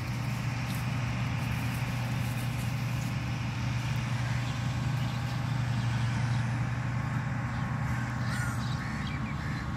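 Steady low hum under an even hiss, with a few short bird calls about eight seconds in.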